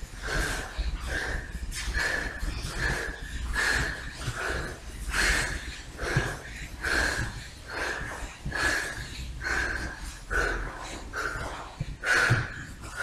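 A man's short, forceful breaths, repeated about one to two times a second, as he drags himself on his belly across a mat in an animal-crawl exercise.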